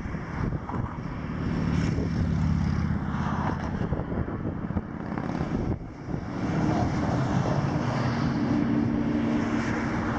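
Steady low drone of a Rhine cargo ship's diesel engine running hard at full power while towing a grounded vessel free.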